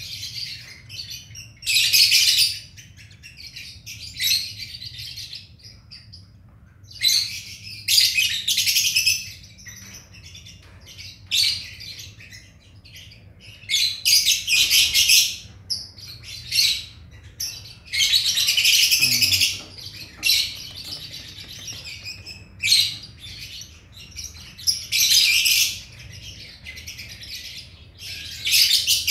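Hand-reared lovebird chick giving harsh, high begging calls in repeated bursts of up to about two seconds while being hand-fed formula.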